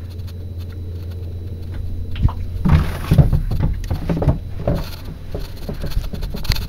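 Boat engine idling with a steady low hum, under irregular knocks and splashes of water against the hull and a brief rushing noise about three seconds in.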